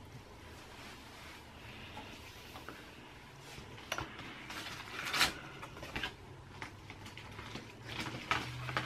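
Soft rustling and handling noises as hair, fabric and small objects are moved about, with a few light taps or clicks, the loudest about five seconds in, over a low steady hum.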